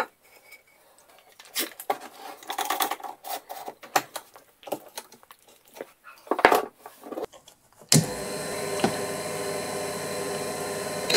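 Scattered clicks and knocks of a wooden block being positioned and Irwin Quick-Grip bar clamps being ratcheted tight. About 8 s in, the Proxxon mini mill's motor starts and runs steadily, driving a diamond core drill on granite slab that is being wetted with water.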